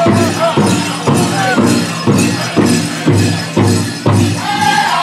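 Pow-wow drum and singers: a large drum struck in an even beat about two and a half times a second, with high voices singing over it and a jingling on top.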